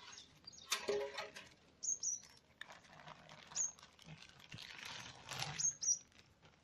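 Clear plastic bag rustling as fish waste is tipped out of it into a blue plastic drum, in a few soft swells. A bird chirps briefly about five times in the background.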